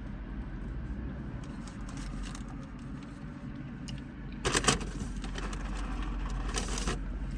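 Steady low background hum with two brief crinkling rustles, about four and a half and about six and a half seconds in.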